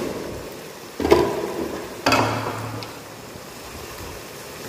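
Wooden spoon stirring frying masala in a hot wok: three strokes about a second apart, each a sudden scrape with a burst of sizzling that fades off.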